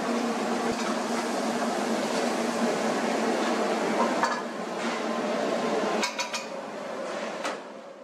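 Busy commercial kitchen: a steady rush with a low hum, with a few clinks of steel ladles and pans, a small cluster of them about six seconds in.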